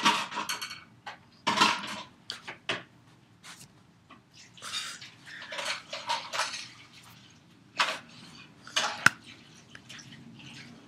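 Irregular clattering and clinking of small hard objects being handled, in a dozen or so short bursts, with one sharp click a little after nine seconds.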